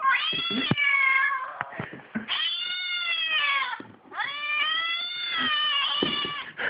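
Cat caterwauling: three long, drawn-out yowls, each rising and then falling in pitch, with a few short knocks between them.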